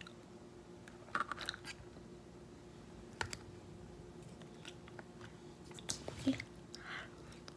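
Close-up chewing and mouth sounds of someone eating tteokbokki, chewy rice cakes in sauce, with a few short clicks and soft smacks scattered through it over a faint steady hum.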